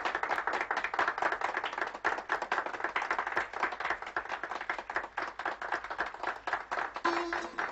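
A group of people clapping their hands, a dense, continuous run of claps.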